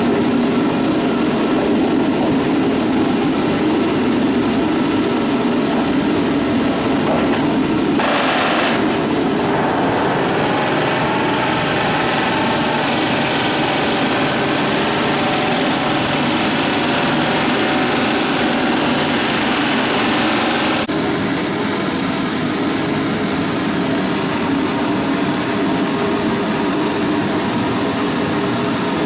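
Steady, loud machinery noise from hot riveting work under a steel ship hull. It runs without pauses, and its character shifts slightly about 8 and 21 seconds in.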